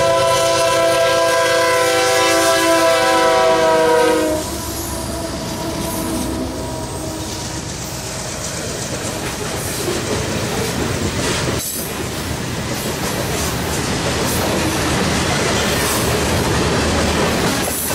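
A freight train's diesel locomotive air horn sounds a chord of several notes and cuts off about four seconds in. The covered hopper cars then roll past, their wheels running steadily on the rails.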